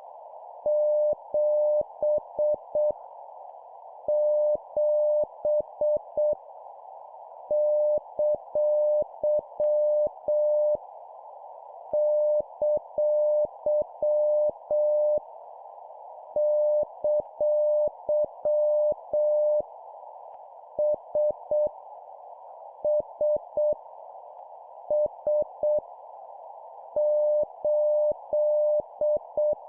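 Morse code (CW) tone near 600 Hz keyed at 7 words per minute. It sends dots and dashes in groups separated by pauses of about a second. Under it runs a steady narrow band of hiss, and each tone starts and stops with a faint click.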